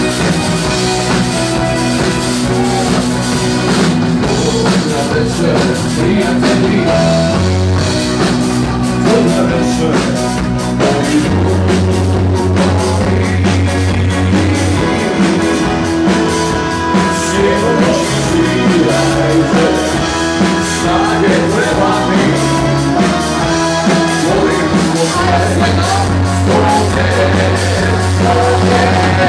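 Live band playing rock music through a PA, with drum kit, electric guitar and bass, and a woman singing into a microphone.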